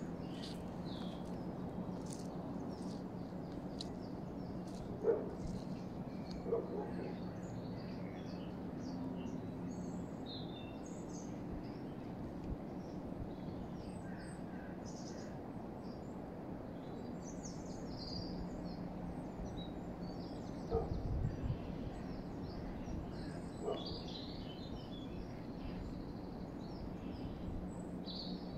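Small birds chirping and singing now and then over a steady low hum and general outdoor background noise, with a few brief louder calls or knocks.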